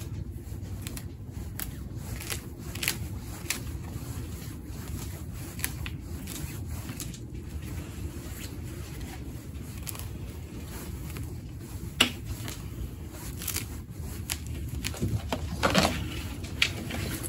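Root rake scratching and combing through the fibrous roots and loose potting soil of a bare-rooted cherry tree: a run of small scratchy ticks, with a few sharper scrapes about twelve seconds in and again near the end, over a steady low rumble.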